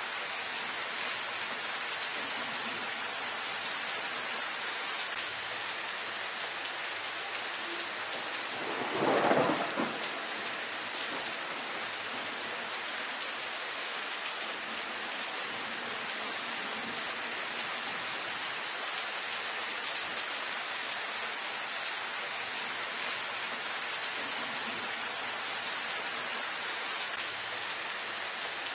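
Steady rain falling on leafy foliage, an even hiss. About nine seconds in, a short, loud clap of thunder rises over it for a second or so.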